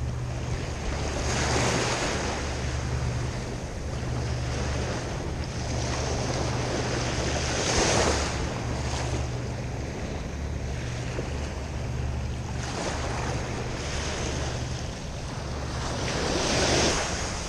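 Ocean surf washing in and out around the wader, swelling every few seconds and loudest about 8 s in and near the end, with wind rumbling on the microphone.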